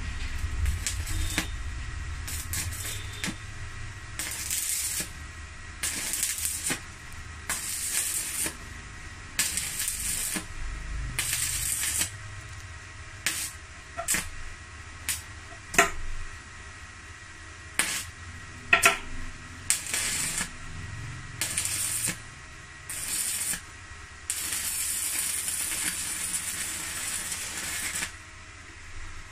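Megatec mini inverter stick (MMA) welder striking and burning an arc on a 2.6 mm rod: crackling hiss in short runs of about a second with breaks between them, a few sharp clicks in the middle, then a steadier run of about four seconds near the end as the rod burns down.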